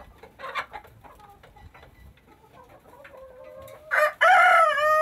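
Hens clucking in short scattered calls. About four seconds in, a rooster crows with one long held call, the loudest sound here.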